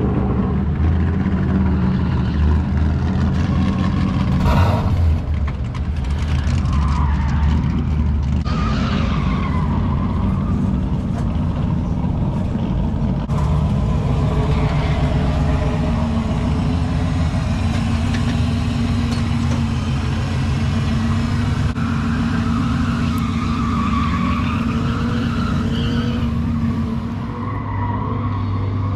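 Chevrolet C10 drift truck's 6.0-litre V8 running and being revved, its pitch rising and falling several times.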